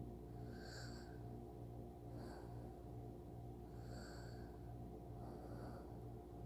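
Soft snoring breaths of a sleeping person, four gentle breaths about a second and a half apart, over a steady low hum.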